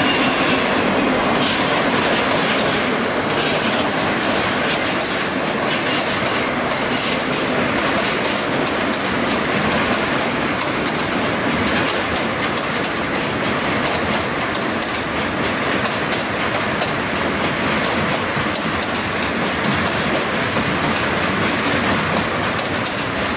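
Freight train of covered hopper wagons rolling past at steady speed, with continuous wheel-on-rail rumble and clatter and a faint wheel squeal in the first second.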